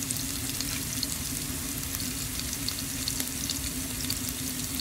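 Food frying in hot oil in a pan: a steady sizzle with many small crackles, over a steady low hum.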